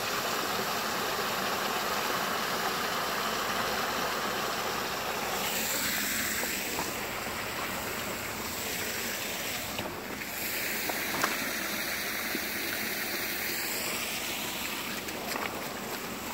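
Small waterfall running as it starts to freeze up, icicles hanging over it: a steady rush of falling water, with a few faint clicks in the second half.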